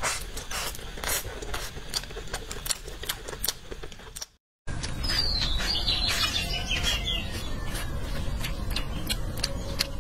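Close-miked eating sounds: wet chewing and sucking with many small clicks, from braised pig's feet. After a brief cut to silence about four seconds in, chewing continues outdoors with birds chirping behind it.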